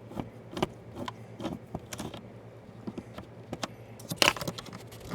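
Small metal clicks and taps as the screw holding the cam on an RV compartment door lock is tightened, with keys or lock parts rattling. A louder metallic clatter comes about four seconds in.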